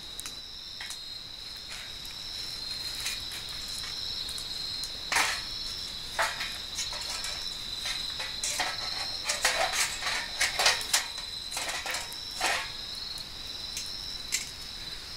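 Crickets chirping steadily in a continuous high trill, with the sharp irregular crackles and pops of a wood fire, thickest about two thirds of the way through.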